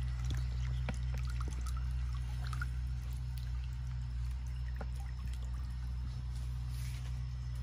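Water pouring and trickling off a mesh landing net as it is lifted out of a pond, with small splashes and light clicks, over a steady low hum.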